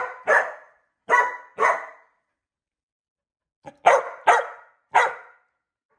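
Welsh corgi barking in sharp, short barks: about four, a pause of about a second and a half, then about four more.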